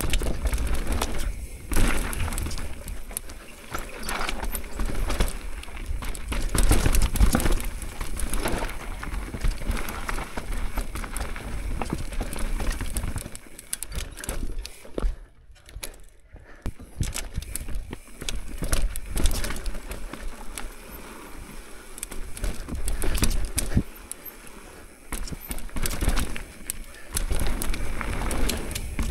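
Mountain bike descending a dirt-and-rock singletrack: tyres rolling and skidding, the bike rattling and knocking over roots and rocks, and wind rumbling on the microphone. It eases in a brief lull about halfway through.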